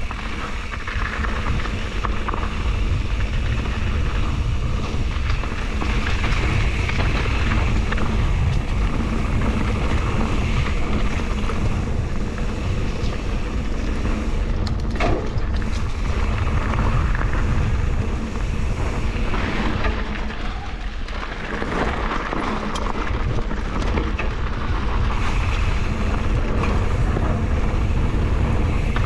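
Mountain bike riding down a dirt and leaf-strewn trail: steady wind rushing over the microphone along with tyre noise on the dirt, and scattered short rattles and knocks as the bike goes over bumps.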